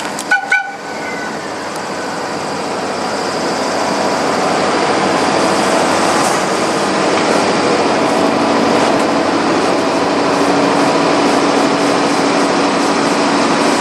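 ED79 electric locomotive creeping up to a sleeper car for coupling: a steady mechanical hum with several motor and fan tones that grows louder as it draws near. There are two sharp knocks near the start.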